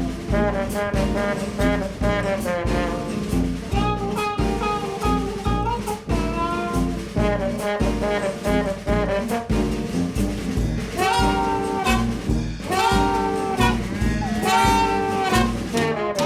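Upbeat jazz background music with a steady beat and a brass or saxophone melody, which plays longer held notes in the second half.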